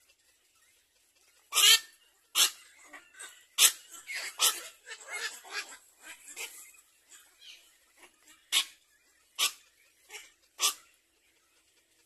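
A string of about a dozen short, harsh animal calls at irregular intervals, starting about a second and a half in, loudest in the first few seconds and thinning out toward the end.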